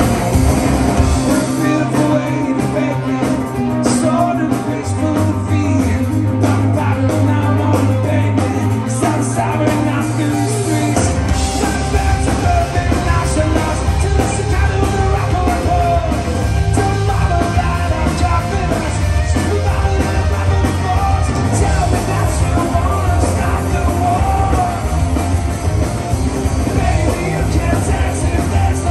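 A post-hardcore rock band playing live, with electric guitars, bass and a singing voice, heard from the crowd. About 11 seconds in, the full band with drums comes in at a driving beat.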